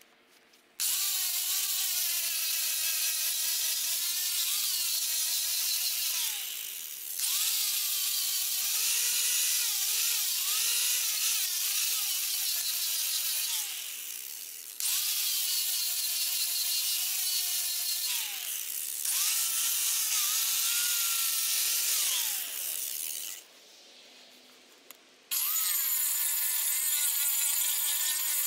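Angle grinder with a sanding disc running and sanding the face of a wooden chopping block. Its whine sags and recovers as the disc is pressed into the wood, in several runs with brief let-offs and one short stop. About three seconds before the end, a second angle grinder starts with a higher, thinner whine.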